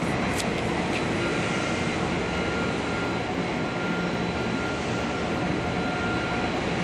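Steady mechanical drone of machinery, with a faint high whine that comes in about a second in.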